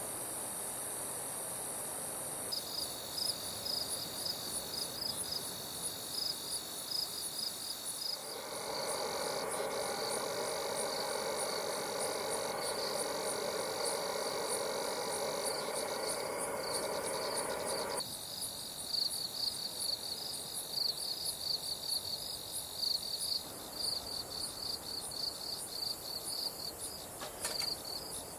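Insects chirping in rapid, high-pitched pulsed trills, a night chorus of crickets. For about ten seconds in the middle, a steadier, lower buzzing joins in, then stops abruptly.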